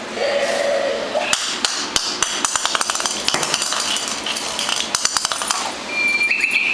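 Hard plastic Babble Ball toy knocked about on a concrete floor by a puppy: a quick run of sharp clicks and knocks, thickest in the middle. A short pitched sound comes near the start and a brief high tone near the end.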